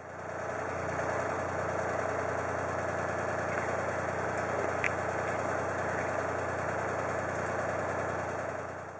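An engine idling steadily, with a fine rapid pulsing rumble.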